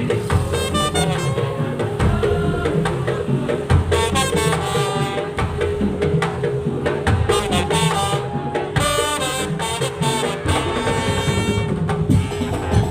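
Madurese tong-tong (daul) music: a percussion ensemble of drums and wooden slit drums playing a dense rhythm under a reedy wind melody, with a steady held tone beneath.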